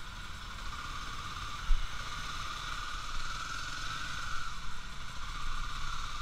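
Motorcycle engine running at low speed while creeping through stop-and-go traffic, a steady mechanical hum with low rumble, and a single short knock a little under two seconds in.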